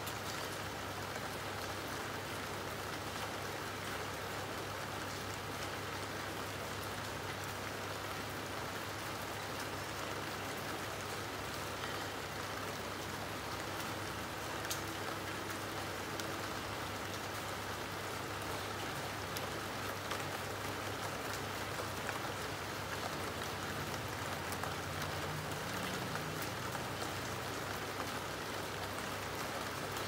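Steady rain falling, with scattered sharper ticks of single drops striking a surface and a low steady hum underneath.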